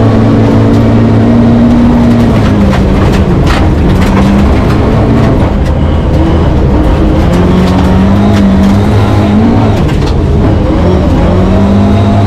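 Rally car engine under hard load, heard inside the cabin, its revs climbing and dropping several times with gear changes and lifts. A few brief knocks from the road against the car about three seconds in.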